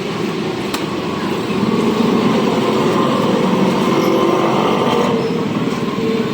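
Pressure washer running steadily as it cleans an air conditioner, its pump and spray making a loud, even rushing noise that gets a little louder about a second and a half in.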